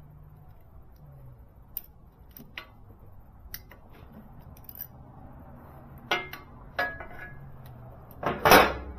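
Scattered metallic clicks and clinks of a socket wrench on an extension being fitted to and worked on a motorcycle's oil drain plug, the clicks growing louder about six and seven seconds in. A louder knock and rustle comes near the end.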